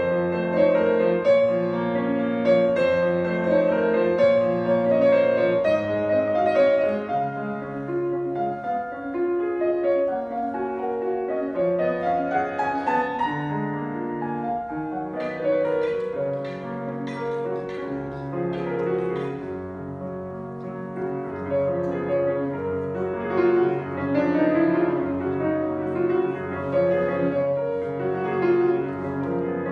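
Solo grand piano playing a classical piece, with a rising run of notes about eleven seconds in.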